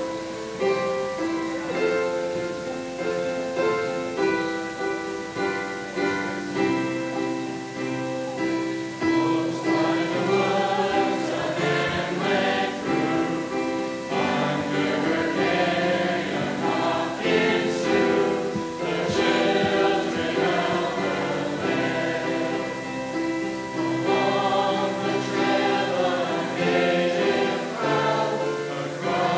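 Mixed high-school chorus of boys and girls singing a school alma mater with instrumental accompaniment.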